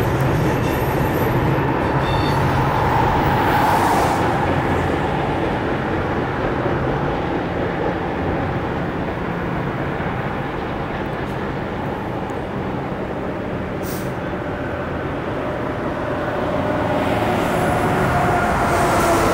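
Rocky Mountaineer passenger train rolling past on the track: a steady rumble of wheels on rail. A faint tone rides above it about three seconds in and again near the end.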